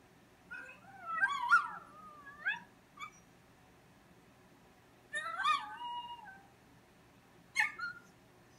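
A dog yelping and whining in three bouts, with wavering, sliding pitch: a long bout about a second in, another about five seconds in, and a short one near the end.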